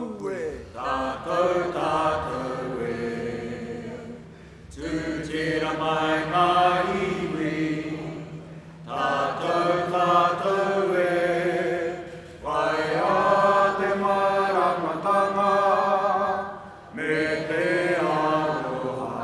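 A small group of voices singing a Māori waiata together in a chant-like melody. It comes in phrases of about four seconds, with a short breath between each.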